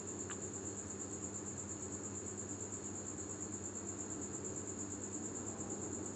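Continuous high-pitched pulsing trill over a low steady hum.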